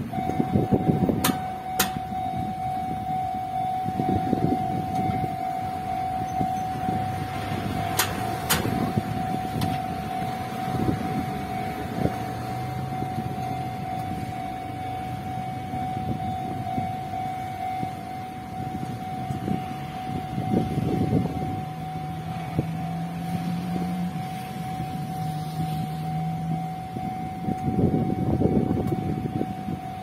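Enoshima Electric Railway level-crossing warning alarm starting up and sounding one steady tone as the barriers lower, over the low noise of passing road traffic and wind. A few sharp clicks come about a second in and again about eight seconds in.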